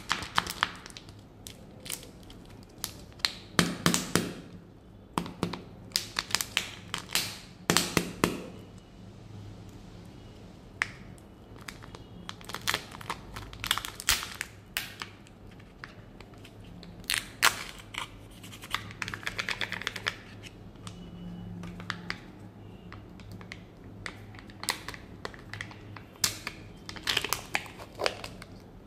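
Kinder Joy egg being opened by hand: irregular sharp plastic clicks and crinkling as the egg is turned, its two-part plastic shell pulled apart and the peel-off seal on the treat half torn back.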